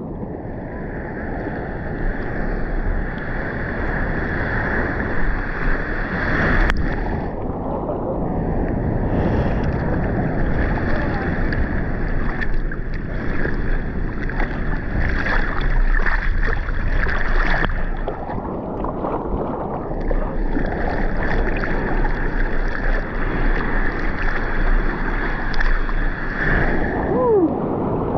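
Seawater sloshing and splashing against a camera held at the surface on a bodyboard, a continuous churning wash with waves breaking nearby. Near the end a wave crest washes up over the camera.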